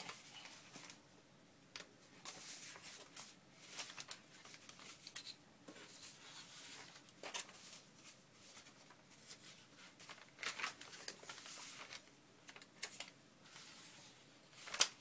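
Sheets of paper being handled and shuffled into a stack: irregular soft rustles and slides of paper, with one sharper, louder paper sound near the end.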